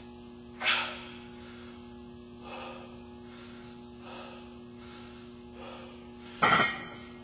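A man breathing hard between reps of a high-rep barbell back squat set, about five sharp breaths one to two seconds apart, the loudest about a second in and near the end. A steady low hum lies beneath.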